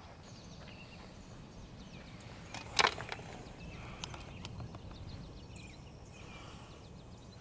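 Wind blowing across the microphone as a steady low rumble, with one sharp click about three seconds in and a few fainter ticks after it.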